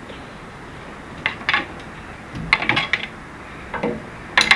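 A handful of light metallic clinks and knocks at irregular intervals as steel parts or tools are handled.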